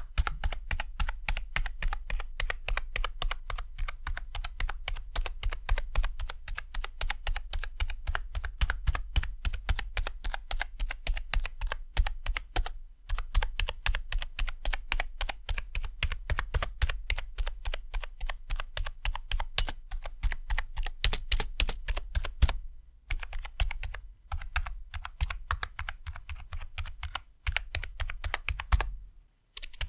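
Keys of the Unlocked LVL LED Gaming Keyboard, a cheap membrane keyboard, being pressed and released in a rapid run of plastic key clacks, several a second, with a few brief pauses.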